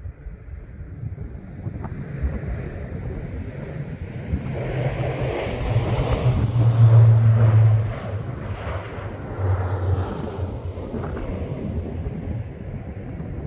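Low-flying C-130 Hercules passing, its four turboprop engines swelling as it approaches, loudest a little past the middle, then fading away with a brief second swell. Wind rumbles on the microphone throughout.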